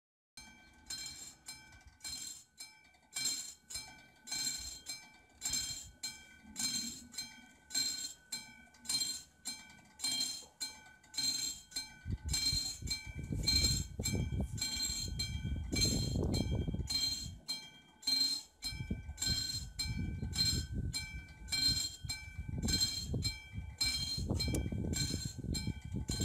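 Level-crossing warning bell of a Czech VÚD crossing signal (a classic mechanical bell) ringing in a steady run of strikes, a little under two a second, which signals that the crossing is closed for an approaching train. From about halfway a low rumble builds underneath.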